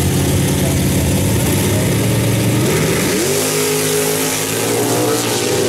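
Two 1964 Mopar drag-racing V8s running loud and rough at the starting line. About three seconds in they launch at full throttle, and the engine note climbs sharply, then holds high as the cars pull away.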